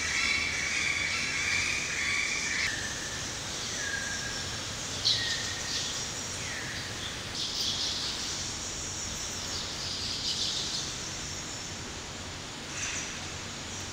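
Birds calling and chirping over a steady background hiss. A high, layered trilling call stops about two and a half seconds in, followed by scattered short chirps and calls.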